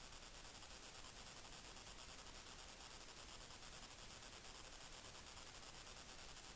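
Near silence: a faint, steady hiss with no distinct sound.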